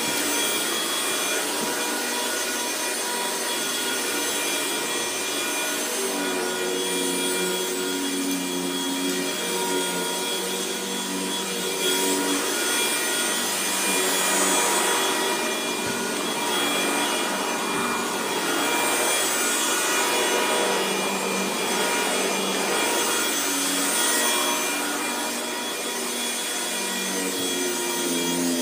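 Vacuum cleaner running steadily with a whining motor and a rasping, scraping noise that swells and eases as it picks up popped balloon debris.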